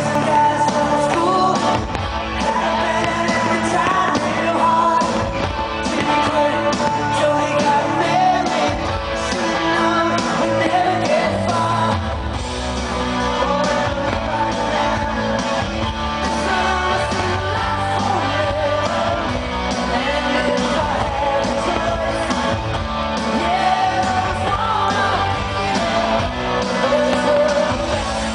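A rock song playing, with a singing voice over the band.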